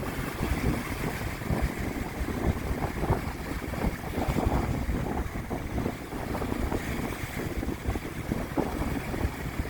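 Strong gusting wind buffeting the microphone, with waves washing onto the lake shore beneath it.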